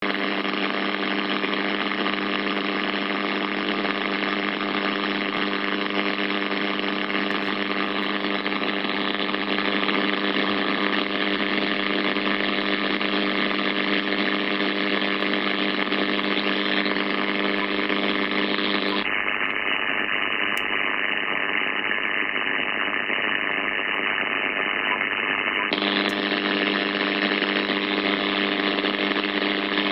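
Icom IC-7300 transceiver's receiver audio on 1.815 MHz AM in the 160 m band: a steady hiss of band noise with a buzz of evenly spaced tones, and no station to be heard. For about seven seconds past the middle, the buzz drops out and the hiss turns duller, then both come back.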